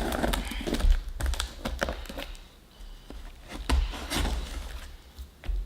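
A cardboard shipping box being handled and opened by hand: scattered taps and thunks of cardboard, with some scraping between them.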